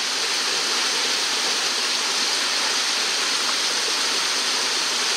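Mountain torrent rushing over rocks: a steady, unbroken rush of water.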